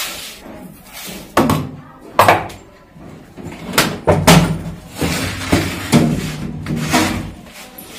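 Metal storage tin of rice being handled: a steel bowl scooping rice, the tin's metal lid clanking shut and the tin pushed along the floor, heard as a string of separate knocks and clanks, some ringing briefly.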